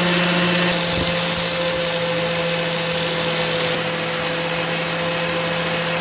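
Electric power tool running steadily against a carbon-steel mason's point chisel: a constant motor hum under an even hiss of abrasion.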